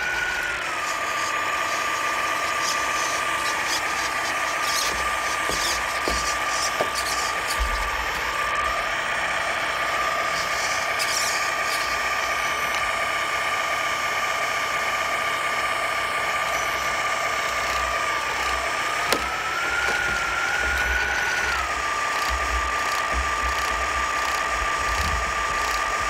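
RC truck's electronic sound module playing a simulated diesel truck engine idling steadily, with one brief rev about three-quarters of the way through before it settles back to idle.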